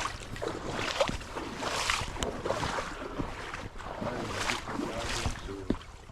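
A person wading through shallow water, a swishing splash with each stride, roughly once a second, over a low rumble of wind on the microphone.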